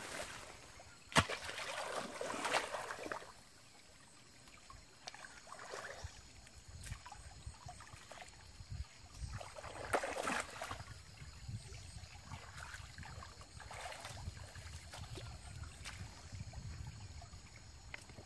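Shallow stream water splashing in irregular bursts as a person wades and sweeps a long pole through it, with a sharp knock about a second in; the biggest splashes come near the start and about ten seconds in.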